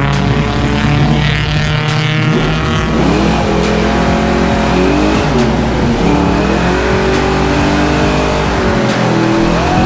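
Car engine revving hard at high rpm during a burnout, the pitch dropping and climbing again a few times.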